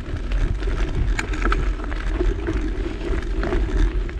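Mountain bike being ridden over a rough dirt track: tyres rolling with many small rattles and clicks from the bike, over a steady low rumble of wind on the microphone.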